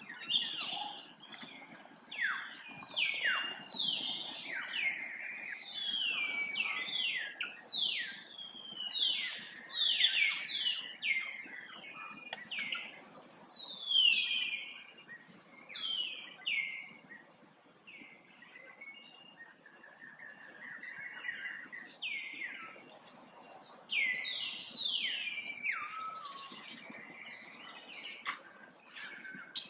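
Animal calls: many short, high chirps or squeals, each falling quickly in pitch, overlapping almost without pause. A faint steady high whine joins them about a third of the way in.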